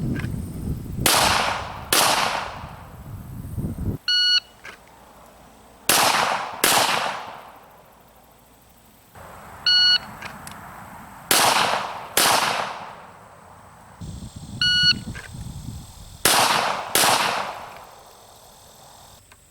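Sig Sauer P320 X5 Legion 9mm pistol fired in quick pairs, two shots under a second apart, four times. Each pair after the first follows a short electronic shot-timer beep by about a second.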